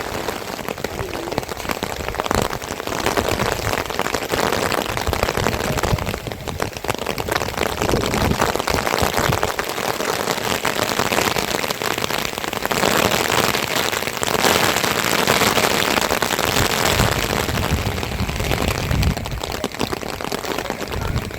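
Heavy rain falling, a dense hiss and crackle of drops striking a surface close by, swelling and easing a little in strength.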